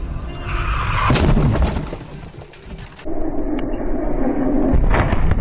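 Dashcam recording of a car collision: road and engine rumble with a loud crash impact about a second in, and a second loud impact just before the end, after a cut to a more muffled copy of the crash.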